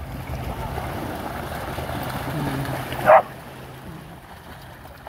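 Dogs splashing through shallow seawater, with wind on the microphone and a low steady hum underneath. About three seconds in, one short, loud dog bark.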